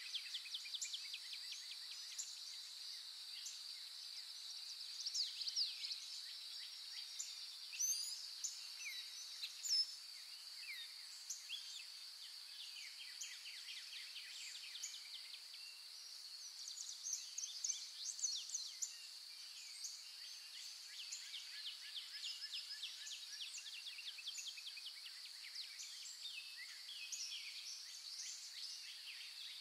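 Birds calling with many short chirps, quick trills and sweeping calls over a steady, high-pitched insect buzz.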